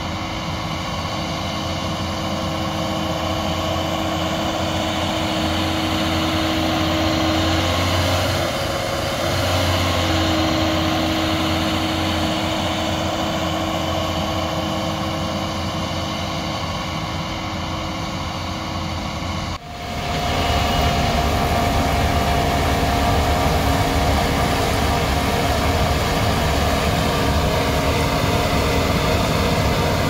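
Large diesel harvest machinery running steadily under load. About two-thirds of the way through the engine sound changes abruptly to a different steady note.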